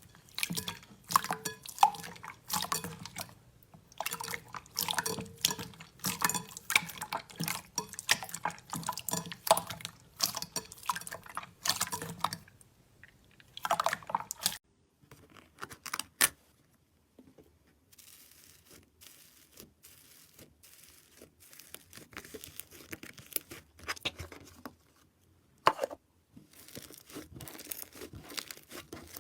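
Slime being squished and pressed by hand, making wet clicking, crackling and popping sounds. The clicks come thick and fast for the first twelve seconds or so, then turn sparser and quieter.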